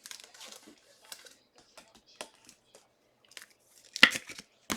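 Trading cards and plastic pack wrappers being handled: scattered soft rustles and clicks, with a louder crinkle about four seconds in and a sharp click just before the end.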